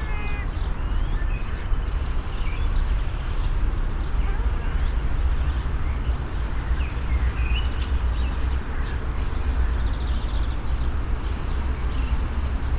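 Nature ambience: a steady, deep rumbling noise with scattered short, high bird chirps.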